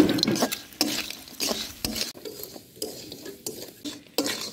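Long spatula scraping and stirring crab pieces around a wok, in repeated strokes a little under two a second, with the frying masala and crab sizzling.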